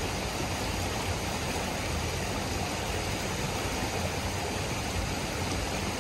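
Small creek's fast water rushing steadily over rocks in a shallow riffle.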